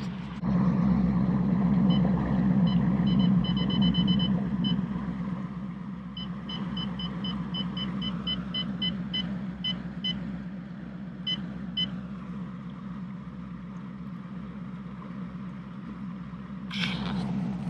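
Outboard motor of a bass boat idling at low speed with a steady, even pulse. Over it, runs of short high electronic beeps, about four to five a second, from a Humminbird Helix 12 fish finder's keys as its map settings are stepped through, between about two and twelve seconds in.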